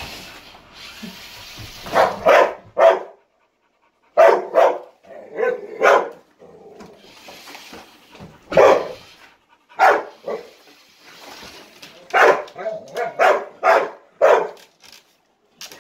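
Pit bull barking repeatedly at a remote-control toy backhoe, in runs of two to four barks with short pauses between.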